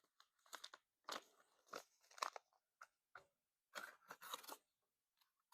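Packaging being handled and pulled apart as a new tire inflator is taken out of its box: a quiet, irregular run of crinkles and scrapes, busiest around two seconds and four seconds in.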